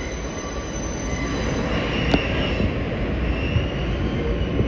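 R160 subway car running along the track, heard from inside the car: a steady rumble of wheels on rail with a faint, high wheel squeal coming and going, and one sharp click about two seconds in.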